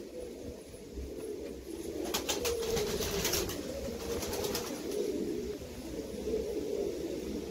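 Domestic pigeon cooing, a continuous low rolling coo from a male bowing to a hen in courtship. A quick run of faint clicks comes about two seconds in.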